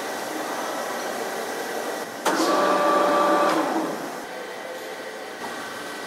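Workshop background noise, then a small motor whines steadily, starting abruptly about two seconds in and dying away about a second and a half later.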